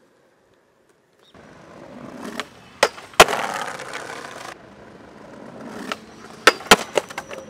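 Skateboard wheels rolling over a tiled pavement, building up, with two sharp wooden clacks from the board. Near the end, after a second build-up, there is a quick cluster of loud clacks and impacts as the skater ollies at a handrail and the board and skater come down on the rail and ground.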